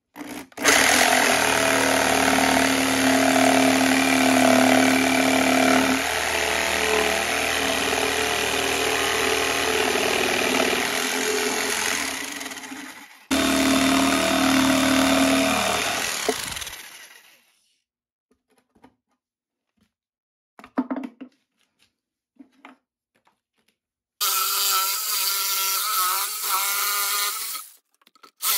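Handheld power saw cutting a circular hole through a plywood panel, freehand along a traced line. It runs steadily for about twelve seconds, stops for a moment, cuts again for a few seconds and winds down to a stop. A few light knocks follow, and near the end a higher-pitched power-tool whine runs for about four seconds.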